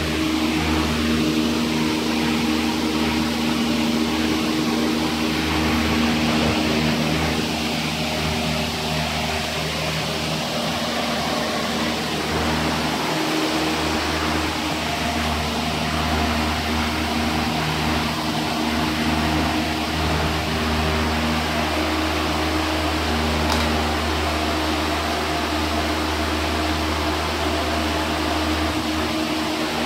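A small motor or fan running with a steady low hum that holds one pitch.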